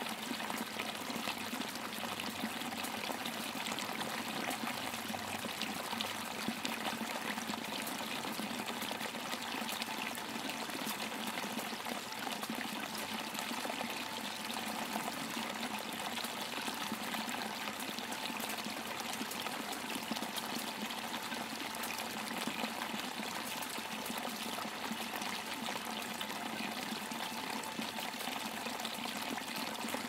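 Steady rush of falling water from a waterfall, an even, unbroken wash of sound.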